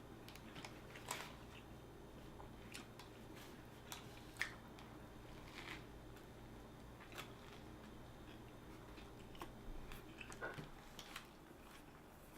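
A person chewing a sub sandwich close to the microphone: faint, scattered small clicks and crunches of the mouth at work.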